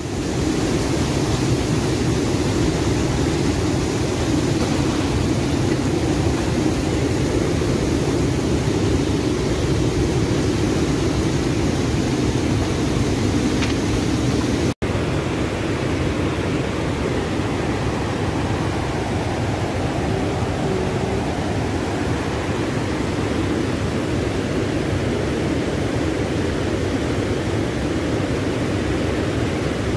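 Steady rushing of a fast mountain river's white-water rapids, cutting out for an instant about halfway.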